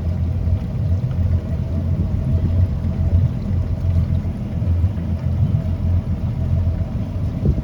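Twin 300 HP Yamaha outboard engines of a center-console boat running steadily, a low rumble with a faint steady higher hum above it.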